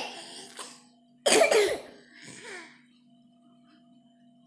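A person coughs once, loudly, about a second in, with a smaller cough-like sound a second later; after that only a faint steady hum remains.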